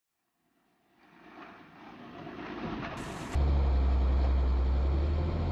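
The CSVP14 mine-resistant ambush-protected vehicle's 336-horsepower engine running as it is driven. The sound fades in, and about three seconds in it suddenly jumps louder into a deep, steady drone.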